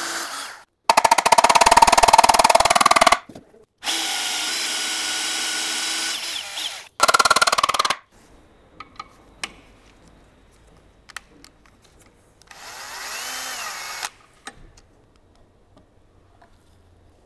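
Cordless drill boring dowel-pin holes into a gearbox case, running in separate runs. A loud rattling stretch about a second in is followed by a steady run and a short loud burst near the middle. Then come a few light taps and clinks as a pin is hammered in.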